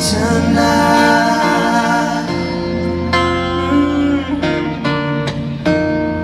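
Live band playing a pop song: a male voice holds the sung word "tonight" over strummed guitar chords.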